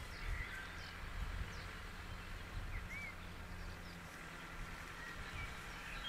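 Outdoor ambience: a few short, faint bird chirps over a low steady rumble.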